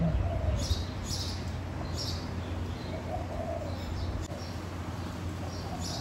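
Doves cooing softly, with a short coo near the start and another about three seconds in, while small birds give several brief, high chirps; a steady low hum runs underneath.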